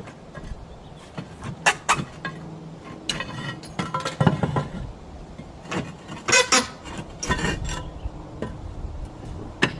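Roof tiles clinking and knocking against each other as they are handled on the roof: irregular sharp clinks, several close together around the middle, over a low steady hum.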